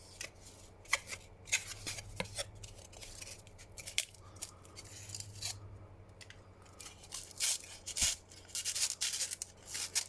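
Hands handling the box and packaging of a foam toy glider kit: irregular short scrapes, rustles and clicks, busiest near the end.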